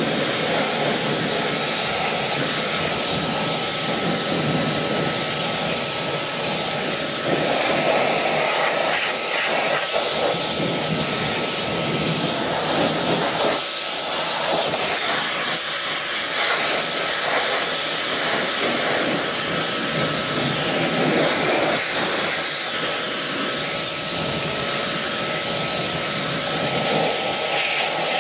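Pressure washer jet spraying water onto an alloy wheel and tyre, rinsing it: a loud, steady hiss with a faint steady whine underneath.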